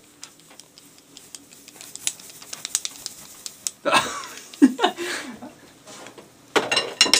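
Light irregular clicks and taps, then a short, loud burst of indistinct voice about four seconds in and another brief one near the end.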